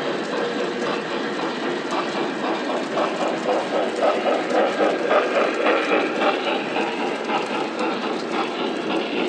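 Model trains running on the layout's track: a steady rolling rumble with wheels clicking over the rail joints. A rhythmic pulsing grows loudest about three to six seconds in, as a large model steam locomotive and its coal hoppers pass close by.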